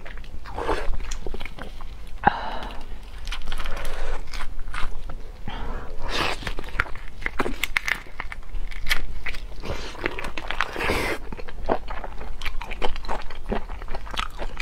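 Close-miked eating of whole large marinated prawns: biting and sucking at the heads and shells, with crunching and wet chewing in many short clicks and smacks.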